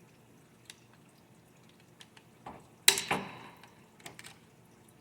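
Snap ring pliers working a steel snap ring out of a 4L60E transmission part: scattered light metallic clicks, with one sharp clink that rings briefly about three seconds in, followed by a couple of small ticks.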